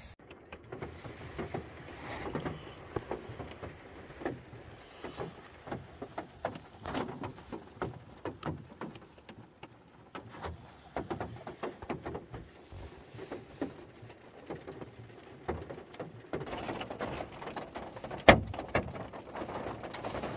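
Irregular light knocks and rustling handling noise, with one sharp click near the end.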